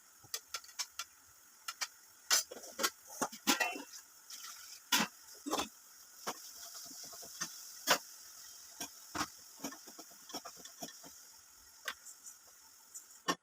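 Kitchen cooking sounds: many irregular sharp clicks and taps over a faint steady hiss, cutting off abruptly at the end.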